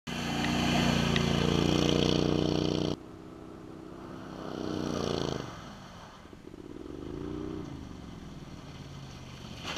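Max 6x6 amphibious ATV's engine running loud and close for about three seconds, then dropping abruptly to a quieter, more distant engine sound. The quieter engine rises and falls in pitch twice as the machine drives around and heads back.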